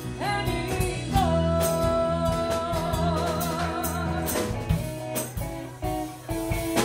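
Live rock band with electric and acoustic guitars, bass and drum kit, with singing: a voice holds one long note that wavers near its end and then drops out, leaving the band playing on.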